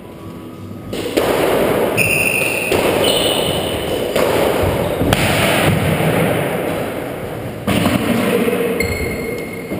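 Squash rally: about seven sharp smacks of the ball off the rackets and walls, each ringing out in the court's echo, with a few short high squeaks of shoes on the wooden floor.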